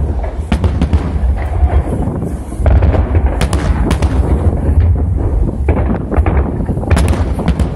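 Fireworks salute: shells bursting overhead in a rapid run of sharp cracks and booms, over a constant deep rumble.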